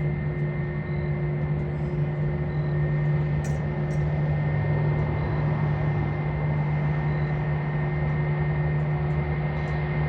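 Airbus A320-232's IAE V2500 jet engines running with a steady, even hum and a constant low drone.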